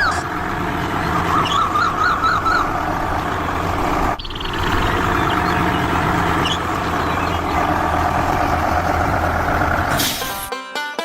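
A vehicle engine running steadily with a low hum, broken briefly about four seconds in. High warbling whistle tones come over it early on. Plucked banjo-like music starts near the end.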